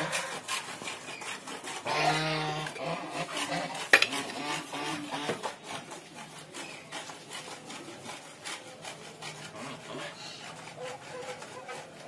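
Domestic geese moving about on a paved yard: a busy scratchy clatter of small clicks and scrapes. A short low call comes about two seconds in, and one sharp knock just before four seconds; the clatter thins out in the second half.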